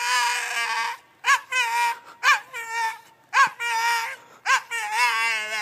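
Bulldog screaming and crying in a run of about five drawn-out, high wails, each rising sharply at the start and then held, as she protests being left at a boarding kennel.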